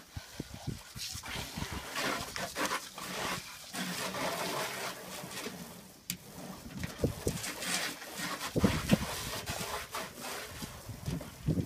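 A dog making noises as it lunges and bites at the spray from a garden hose, with the water splashing onto a car.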